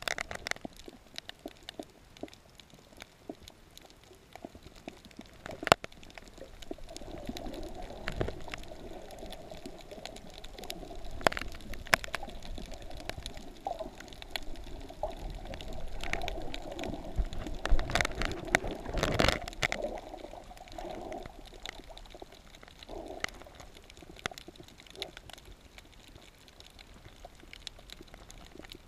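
Muffled underwater sound of water sloshing and gurgling against an action camera's waterproof housing, with many scattered sharp clicks and knocks; the gurgling grows heavier in the middle and is loudest about two-thirds through.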